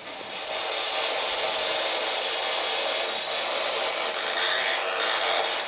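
Steady, fairly loud hiss of white-noise static, strongest in the upper range.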